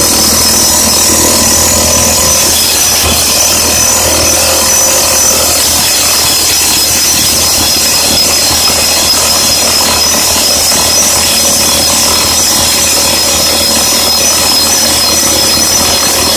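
Excavator-mounted Roxar drifter, a hydraulic top-hammer rock drill, hammering and rotating steadily into hard granite. It makes a loud, continuous rattle with a high-pitched ringing edge over a low steady hum.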